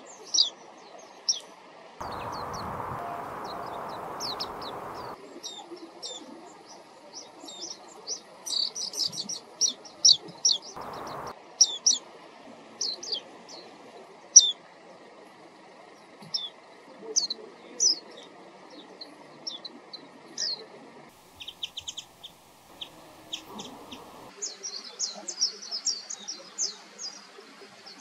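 Small songbirds calling with short, high chirps, often in quick runs. A rushing noise comes in from about two to five seconds in.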